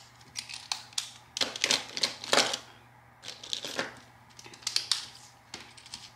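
Felt-tip markers scribbling on paper, colouring in a printed sheet in quick back-and-forth strokes that come in several scratchy bursts, loudest around two seconds in, with small clicks from handling the markers.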